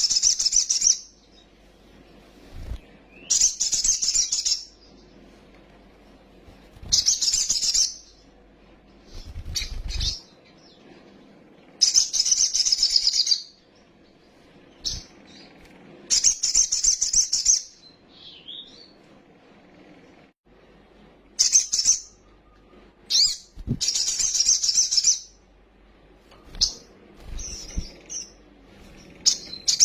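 Crimson sunbird (sogon) singing in repeated bursts of rapid, high-pitched trilling chatter, each about a second long and coming every few seconds. A few low thumps fall between the bursts.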